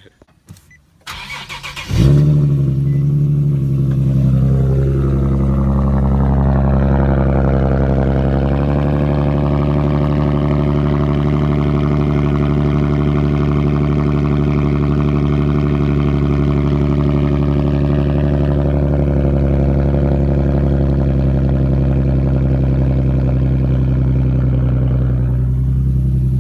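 Cold start of a Nissan 370Z's 3.7-litre V6 breathing through a Tomei Expreme catback exhaust, heard from inside the cabin: a brief crank, the engine catches about two seconds in with a flare, then settles into a steady idle whose tone shifts slightly about eight seconds in.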